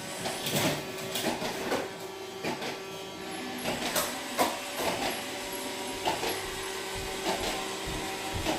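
Irregular clicks and taps of small objects being handled, about once or twice a second, over a steady low hum.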